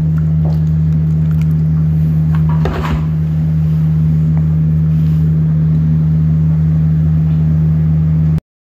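A loud, steady low hum, with a brief clatter of handling about three seconds in; all sound cuts off abruptly near the end.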